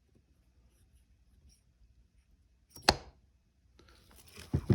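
Transmission parts being handled on the bench as the 4th-gear synchro and its spring are fitted: one sharp click about three seconds in, then a short rustle and a couple of quick clicks near the end.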